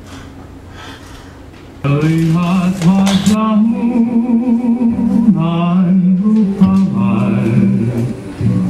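Low room sound, then, about two seconds in, music for an Indonesian ronggeng dance starts abruptly and loudly, with a singing voice wavering and sliding in pitch over a steady lower accompaniment.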